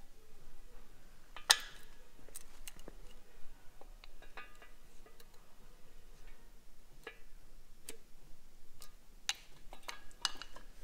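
Irregular light metallic clicks and taps as a piston ring and a piston on its rod are handled in the cylinder bore of an aluminium LS1 V8 block while the ring's end gap is checked. One sharper click comes about a second and a half in, with a quick cluster of taps near the end.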